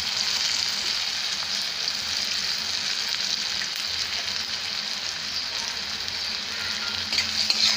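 Chopped onion, tomato, garlic, green chilli and nigella seeds frying in hot oil in a karai, a steady sizzle. A metal spatula stirs them, with a few faint clicks near the end. The aromatics are being browned until reddish before the boiled taro leaves go in.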